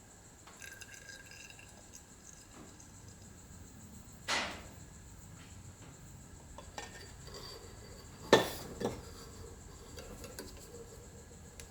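Light handling clinks and knocks of tools and an oil container while topping up a motorcycle fork leg with fork oil: a short rushing noise about four seconds in, and two sharp clinks about half a second apart a little after eight seconds in, the loudest.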